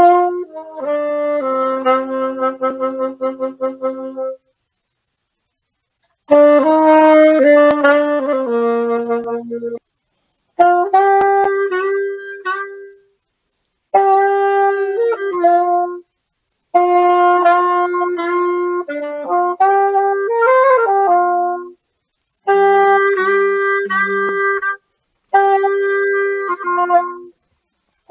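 Instrumental music with a wind-instrument sound: sustained chords played in about seven phrases of two to five seconds, each ending abruptly in a short silence.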